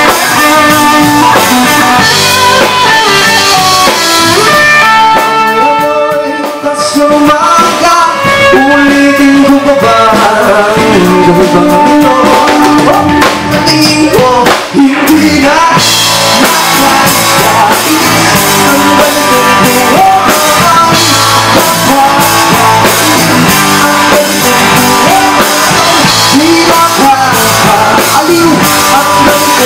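Live rock band playing, with drum kit, electric guitars and bass, and a singer's voice over them.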